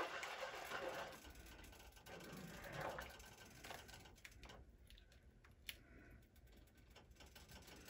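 Faint stirring of a thick, thickening peanut kare-kare sauce in a pan with a slotted plastic spatula, with a few light clicks of the spatula against the pan.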